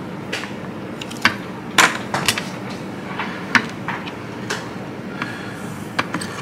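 Irregular sharp clicks and knocks of a circuit board being worked loose from its plastic housing by hand and tool, over a steady low hum.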